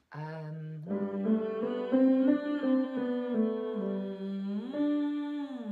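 A woman humming a vocal warm-up exercise, stepping up and down through held notes, with a smooth slide up and back down near the end, along with a musical instrument.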